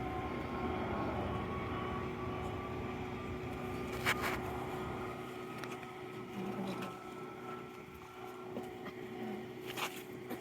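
A car driving, its engine and road rumble dying down about halfway through as it slows, with a steady hum and a couple of sharp clicks, one about four seconds in and one near the end.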